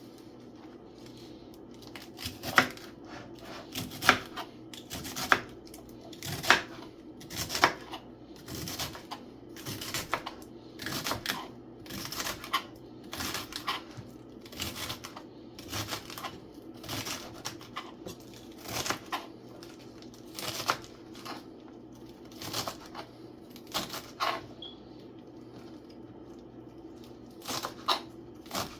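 Knife cutting vegetables on a cutting board: sharp, irregular chops about one a second, with a short pause a little before the end, over a steady low hum.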